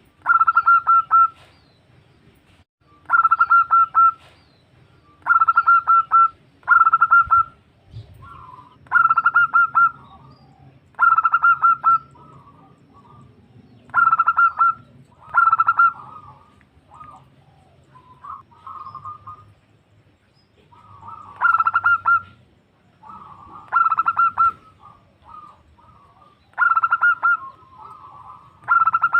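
Female zebra dove (perkutut) calling to a male: about a dozen short phrases of rapid staccato cooing notes, each about a second long and coming every two to three seconds, with softer notes in the gaps between them.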